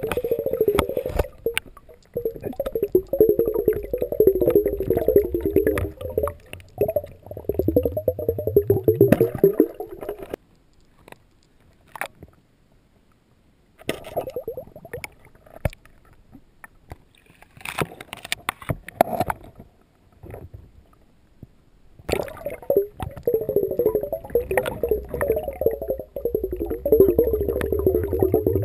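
Churning, crackling underwater noise picked up by a submerged camera, in two long stretches with only scattered clicks between them.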